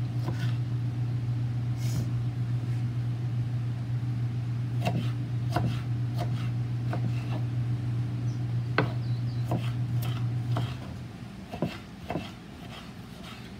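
Knife dicing a tomato on a wooden cutting board, the blade knocking the board now and then. Under it runs a steady low machine hum that cuts off suddenly about eleven seconds in.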